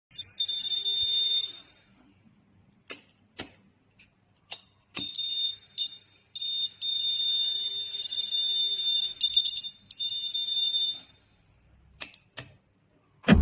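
Electronic buzzer of a home-built fire alarm sounding a steady high-pitched tone: a short burst near the start, then about six seconds more broken by a few brief gaps. Several sharp clicks fall in the pauses.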